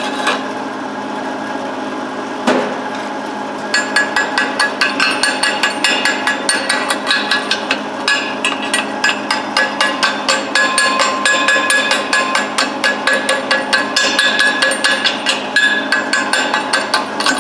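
Chipping hammer knocking slag off stick-weld beads on a steel railroad-track anvil: one knock, then a fast run of strikes, about four a second, from nearly four seconds in.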